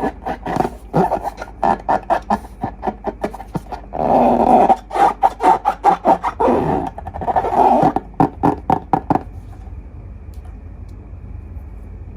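Slime being squeezed and worked by hand, giving a dense run of sticky, squishy crackles and pops. It stops about nine seconds in, leaving a faint hiss.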